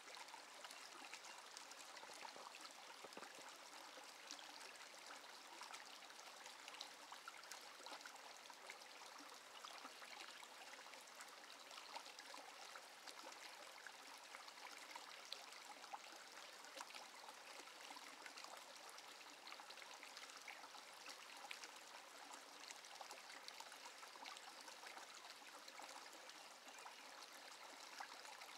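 Small shallow brook trickling over rocks: a faint, steady rush of running water with fine splashes.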